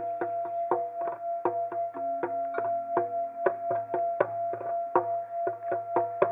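Music: a steady held drone under a quick, even percussion beat.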